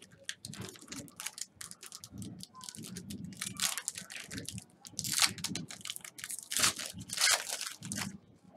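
Trading-card pack wrapper crinkling and tearing as packs are ripped open and the cards handled: irregular rustling, loudest in a few crackly bursts in the second half.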